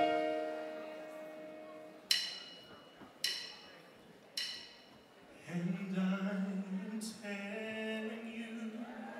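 Live accompaniment strikes a chord and lets it ring, then plays three more sharp struck chords about a second apart. About five and a half seconds in, a male singer comes in on a long held note over the accompaniment.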